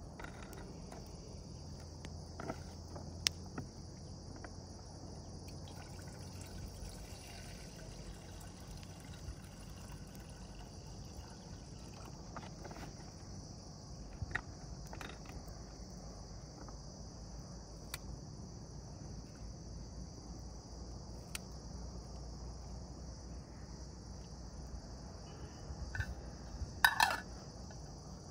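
Steady high chirring of crickets and other insects, with scattered small clicks and knocks and one louder brief noise near the end.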